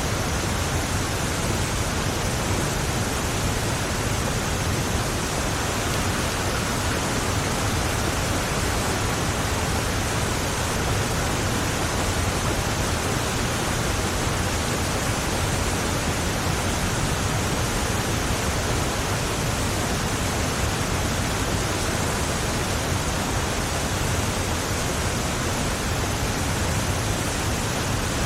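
Heavy rain falling on a moving car, heard from inside: a steady, dense hiss with a low rumble of road and engine underneath.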